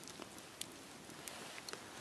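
Wood campfire burning: a soft steady hiss with a handful of sharp crackles and pops from the logs, the loudest a little over half a second in and another pair near the end.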